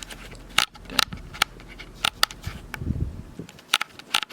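Handling noise: a string of sharp clicks and taps, about seven in all, with a low thump about three seconds in.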